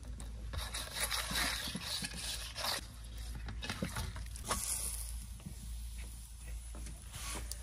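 Dough kneaded by hand in a steel bowl: soft, irregular squelching and scraping against the metal.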